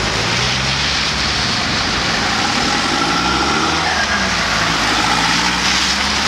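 Cars driving past close by on a rain-wet road: a steady hiss of tyres on wet asphalt over running engines, whose pitch rises and falls about halfway through.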